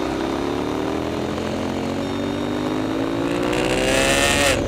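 KTM 990 SMT's 75-degree V-twin through a LeoVince exhaust, pulling steadily up through the revs under acceleration. A rushing hiss joins in near the end, and just before the end the pitch drops sharply at an upshift.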